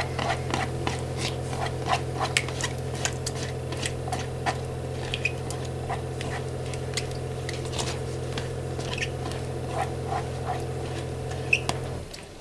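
Silicone spatula scraping thick yogurt out of a plastic cup into a bowl: a scattered series of short scrapes, taps and wet squishes. Under it runs a steady low hum that cuts off near the end.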